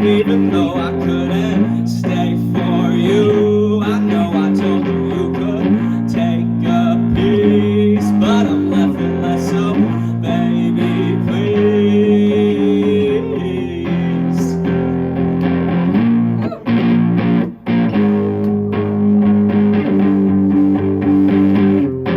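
Punk song played on guitar and bass without drums: sustained chords changing about every two seconds, broken by two short stops about three-quarters of the way through.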